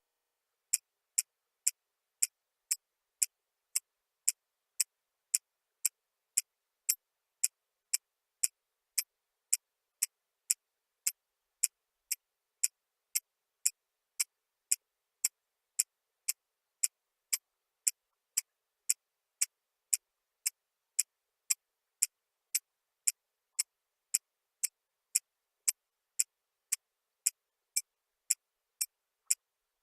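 A steady, sharp ticking, about two ticks a second, with silence between the ticks.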